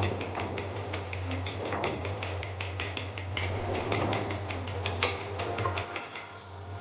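Quick, irregular run of small clicks and knocks, several a second, over a steady low hum that drops away near the end.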